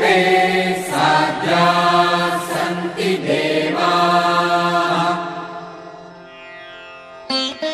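Background music: a Sanskrit mantra chanted by a voice over a steady held drone, fading out about five seconds in. Plucked string notes start near the end.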